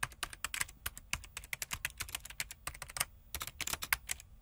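Computer keyboard typing, a fast run of key clicks with a brief pause about three seconds in, over a faint steady hum.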